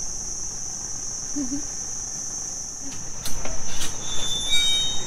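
Steady high-pitched drone of a tropical insect chorus. About three seconds in, a run of knocks and bumps starts over it, with a few short high squeaks near the end.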